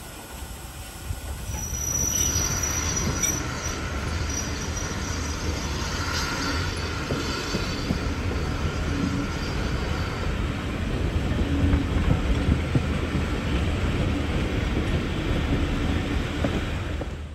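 Inside a passenger carriage of a steam-hauled train rounding a curve: the carriage wheels rumble steadily along the rails, and high-pitched flange squeal sounds for several seconds, loudest about two seconds in.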